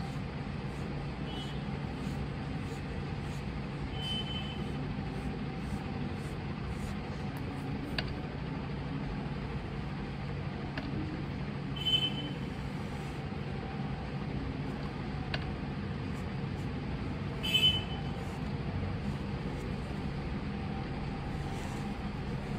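Steady low background rumble, with a few brief high-pitched squeaks of a marker tip dragging on the drawing surface. The two loudest come about halfway through and again a few seconds later.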